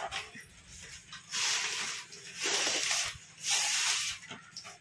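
Air blown by mouth through a thin straw into gold foil letter balloons: three long hissing puffs about a second apart.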